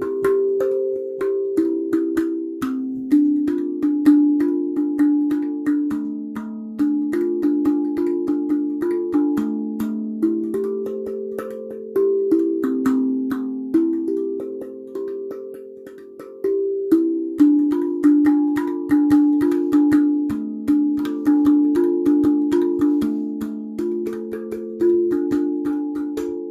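A tuned metal drum (the uploader's 'gouda drum') played by hand in a continuous melody of struck, ringing notes, about two or three a second, each note dying away as the next is struck.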